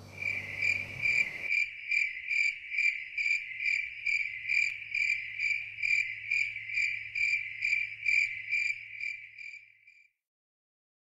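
Cricket chirping at night in an even rhythm, about five chirps every two seconds, fading out near the end.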